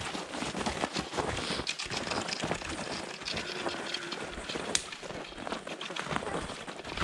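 Footsteps crunching through snow, an uneven run of many short crunches.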